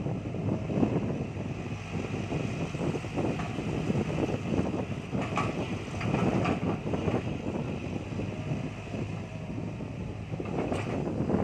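Cat 312 hydraulic excavator's diesel engine running steadily under load as the machine swings and dumps a bucket of dirt. A few sharp clanks and knocks come in around the middle and again near the end.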